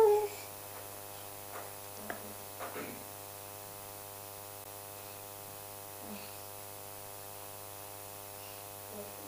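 Steady electrical mains hum with a faint buzz. A small child's high vocal sound trails off right at the start, and a few faint brief sounds follow.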